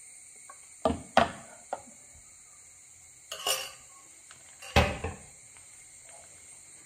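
Non-stick tawa being lowered and shifted on the cooktop after the batter is swirled: a few metallic knocks and clanks, with a short rattle midway and the loudest knock near the end.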